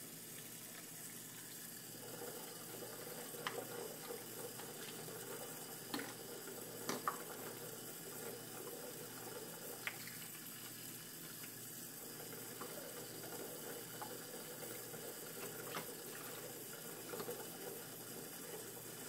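Kitchen faucet running a thin steady stream into a plastic cup and a sink of soapy water. A few sharp light knocks of plastic dishes being handled come now and then.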